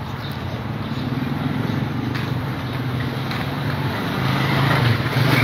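A motor vehicle's engine running steadily as it moves along a road, its hum growing louder about a second before the end.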